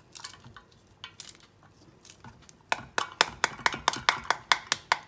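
A metal spoon beating the back of a halved pomegranate held over a steel bowl, knocking the seeds loose: a fast run of sharp taps, about six a second, starting about halfway through. Before it come a few faint clicks from a knife scoring the rind.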